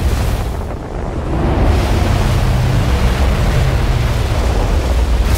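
Film sound design of a giant sandworm approaching under the dunes: a deep, continuous rumble with rushing, hissing sand. It dips briefly about a second in, then swells back up.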